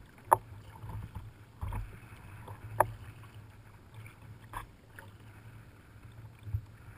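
Kayak paddling: sharp knocks and splashes of paddles working the water, the two loudest about a third of a second in and near three seconds, over a low rumble of wind.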